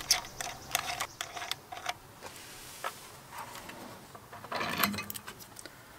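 Plastic LED trailer light housing handled against a metal trailer bracket: light clicks and rattles in the first two seconds, then a second cluster of clicks about four and a half seconds in.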